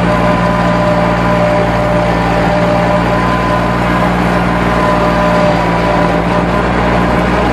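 Lawn mower engine running at a steady speed, with no change in pitch or load.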